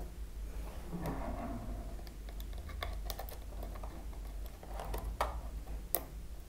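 Scattered light clicks and taps of fingers handling a plastic RC radio transmitter case while a micro SD card is fitted into its card slot.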